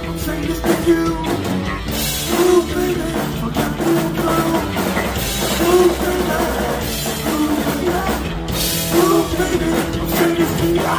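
Heavy metal band playing live: distorted electric guitar riffing over bass and a pounding drum kit, with no vocal line recognised.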